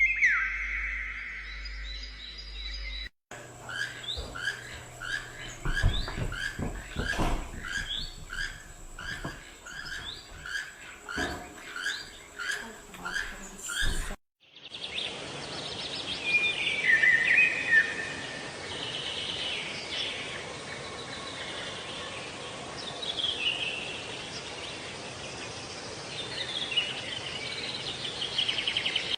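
Small bird chirping. First comes a falling whistled call, then a run of repeated two-part chirps a little more than once a second, then scattered calls over a steady hiss. Abrupt cuts about three and fourteen seconds in separate the three parts.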